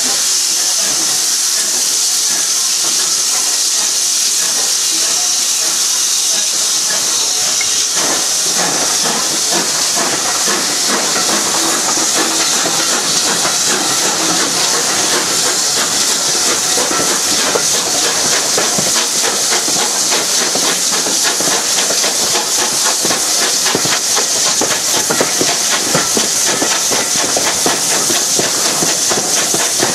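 Steam locomotive hauling a train away from a station, heard from a carriage window: a steady hiss of steam and rushing air. About eight seconds in it gets busier, with quick beats and wheels running over pointwork.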